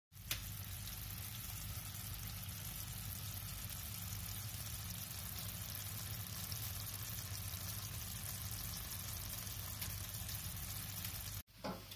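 Patty pan curry sizzling gently in a frying pan: a steady soft hiss. It drops out for an instant at the start and again just before the end.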